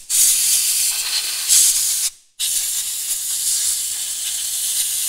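Compressed-air blow gun blasting through a wheel's bearings with a steady hiss, clearing out diesel cleaner. It comes in two long blasts, with a brief break about two seconds in.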